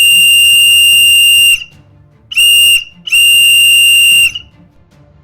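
A whistle blown three times: long, short, long, each a steady, piercing high tone that cuts off cleanly.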